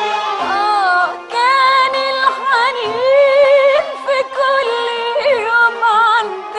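Old Arabic song recording: an ornamented melodic line with vibrato and pitch slides over a string ensemble, with a brief drop in level about a second in.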